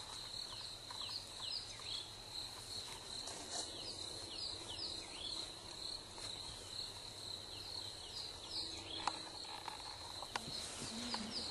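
A steady high insect trill, with birds giving short downward-sliding chirps in quick runs over it.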